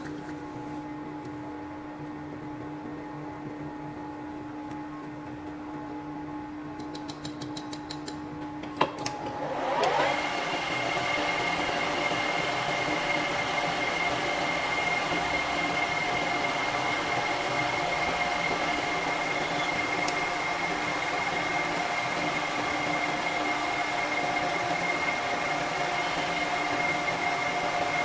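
Metal lathe: a quieter steady hum, then a sharp click about nine seconds in. The spindle then spins up with a rising whine and runs steadily with a high whine over a hum, not cutting.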